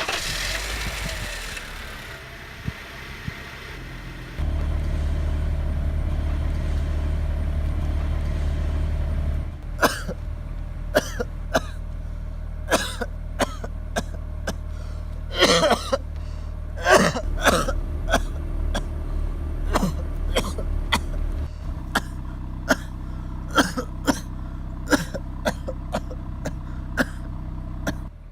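A car engine starts up and idles, running louder for about five seconds. From about ten seconds in, a person coughs again and again in short fits over the idling engine.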